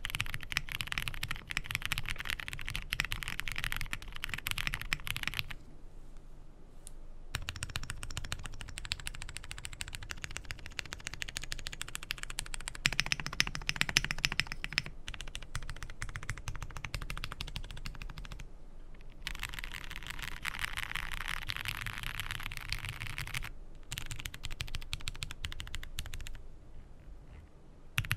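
Typing on a Zoom65 EE V2 65% mechanical keyboard: rapid runs of clacking keystrokes broken by short pauses, with a few louder key presses about halfway through.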